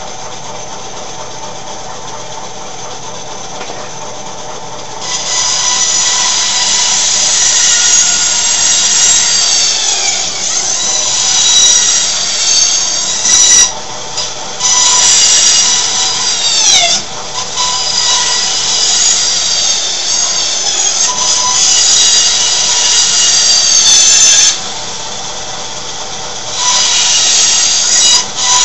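A bandsaw running and cutting the corners off a block of wood in a series of cuts. A high whine grows loud while the blade is in the wood and its pitch drops twice as it loads up, with short lulls between cuts.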